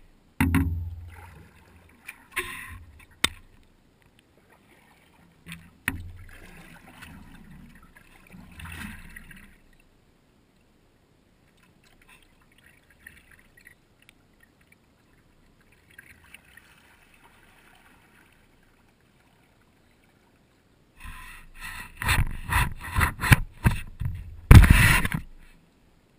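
Kayak being paddled: uneven splashes and knocks of the paddle in short bursts, a quiet stretch in the middle, then a quick, loud run of strokes near the end.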